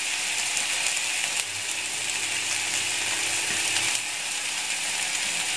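Stir-fry of baby corn, carrots and beef meatballs sizzling steadily in a frying pan, with a light crackle, just after the sauces have been poured in.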